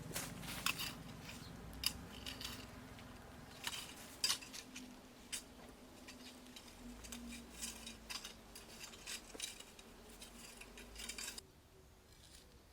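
Kitchen handling sounds: a steady run of small irregular clicks and clinks of utensils and dishes over a low steady hum, stopping abruptly near the end.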